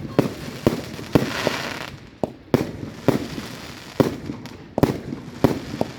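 Fireworks going off: about a dozen sharp bangs at irregular spacing, roughly two a second, with a short hiss just after the bang about a second in.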